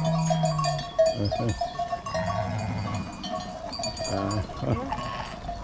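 A flock of sheep in a pen, with bells clinking and ringing over and over and a few short bleats.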